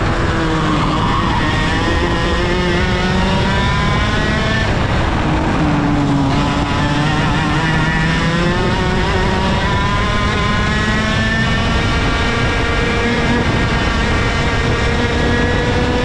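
IAME KA100 100cc two-stroke kart engine at racing speed. The revs climb, drop about six seconds in, then climb steadily again.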